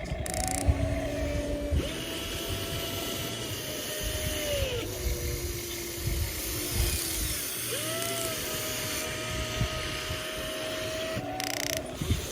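Small electric motors of a radio-controlled toy excavator whining as it works. The whine starts and stops several times and glides up and down in pitch as the motors change speed, over a rough low rumble.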